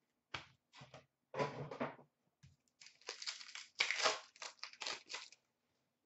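Hands handling trading cards and a crinkly pack wrapper: a run of short rustling and crinkling noises, loudest about a second and a half in and again around four seconds in.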